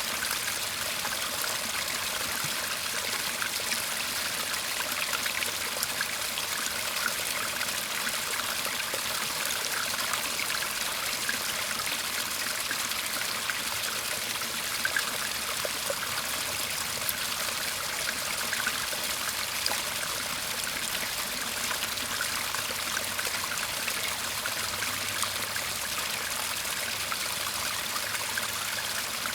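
Small garden stream murmuring steadily, water trickling and burbling over stones.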